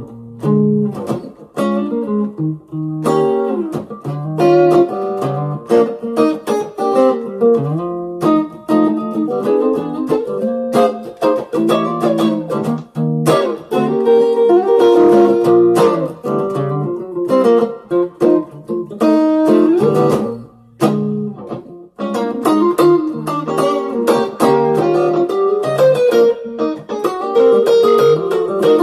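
Squier electric guitar played through a Zoom G1on multi-effects pedal and a small amp: a B-flat blues mixing picked single-note lines and chords, with a brief break about two-thirds of the way through.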